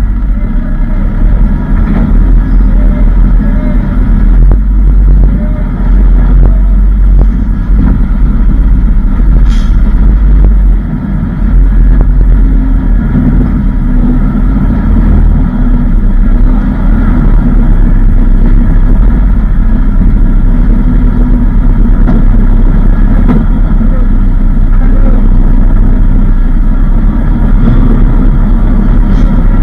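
Large truck's engine running steadily at low speed, heard loud and deep from inside its cab while the truck is manoeuvred into its parking spot on a ferry's vehicle deck; the sound dips briefly about eleven seconds in.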